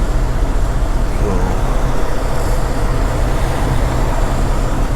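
Steady low rumble of an idling truck diesel engine, with an even hiss over it.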